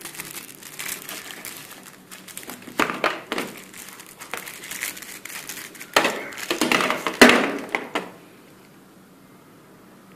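Thin clear plastic wrapper crinkling as a graphics-tablet stylus is handled and taken out of it. The crinkling comes in irregular bursts, loudest around three seconds and six to seven seconds in, and stops about eight seconds in.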